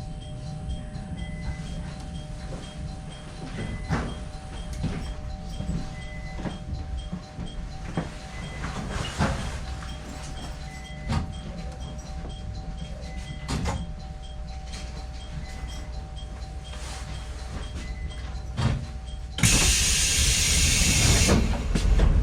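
Electric train running slowly with a steady low rumble and a faint electrical hum, a soft beep repeating about every two and a half seconds and occasional knocks from the wheels. About nineteen seconds in, a loud hiss of compressed air lasts about two seconds.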